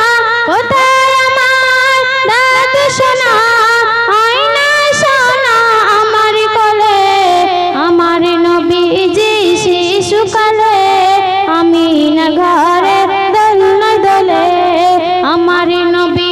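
A girl singing a Bengali Islamic ghazal (gojol) into a microphone, drawing out long held notes with sliding, melismatic ornaments. The melody steps down in pitch about a third of the way through.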